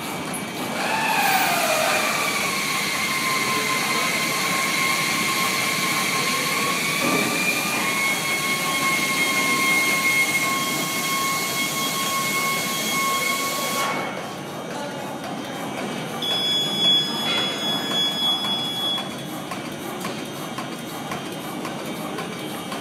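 Non-woven sheet cutting machine running: a steady hiss with a steady whine that dips in pitch as it starts, steps up slightly partway through and then cuts off suddenly. A fainter, higher steady tone follows for a few seconds.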